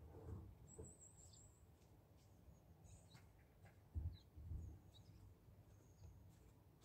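Near silence: faint, distant bird chirps, with a couple of soft low bumps about four seconds in.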